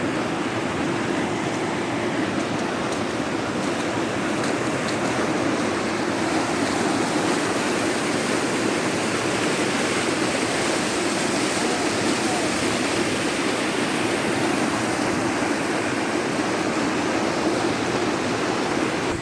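River swollen by rainy-season rain, its fast water rushing steadily as a dense, even noise.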